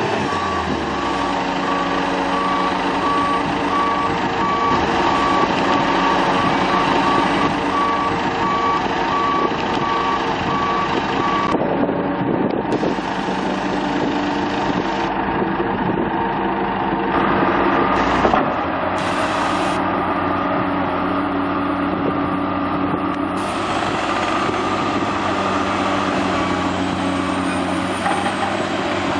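Diesel engines of heavy crawler earthmoving machines, an excavator and a John Deere 750J bulldozer, running steadily. A backup alarm beeps at an even pace for roughly the first eleven seconds, then stops.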